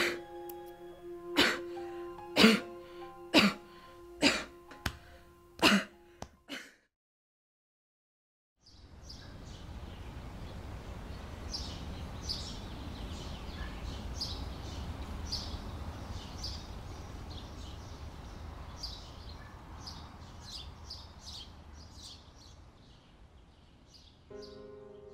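Film soundtrack: a held musical note with sharp hits about once a second, which cuts to silence. A steady low room rumble with short high chirps follows, and music comes back near the end.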